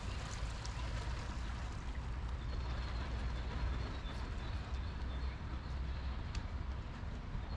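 Steady outdoor background noise: a low rumble under an even hiss. A faint high steady tone joins about two and a half seconds in.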